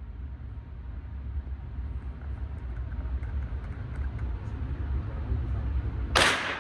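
A steady low rumble that slowly builds, then a single loud gunshot from a range firearm near the end.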